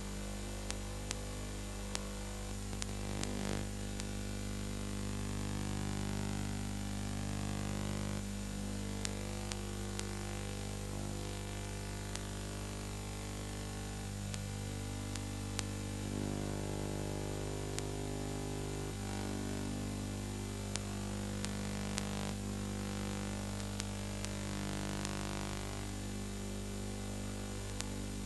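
Steady low electrical mains hum with hiss and scattered crackling clicks: the noise floor of a silent Super 8 film transfer with no soundtrack of its own.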